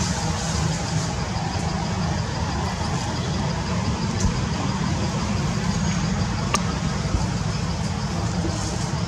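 Steady low rumble of road traffic with an even hiss over it, and a couple of faint clicks partway through.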